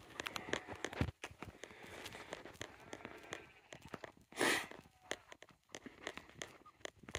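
Footsteps and light rustling along a grassy hill path, a run of short taps and clicks, with one brief loud rush of noise about four and a half seconds in.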